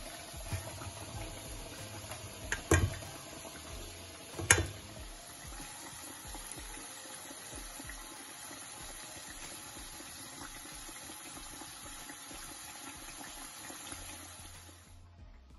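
Banana fritters deep-frying in hot oil in a wok: a steady sizzle, with two sharp clicks about three and four and a half seconds in. The sizzle fades out near the end.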